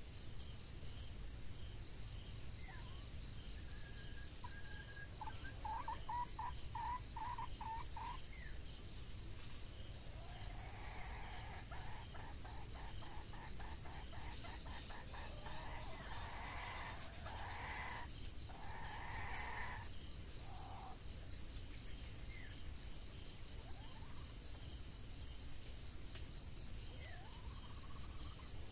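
Red junglefowl clucking: a short run of clucks about five seconds in, then a longer series of quick clucks and cackles from about ten to twenty seconds. A steady high insect drone runs underneath.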